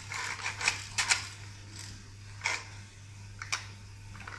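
Hard plastic toy cars and a plastic toy car-carrier trailer being handled, with scattered sharp clicks and knocks of plastic on plastic.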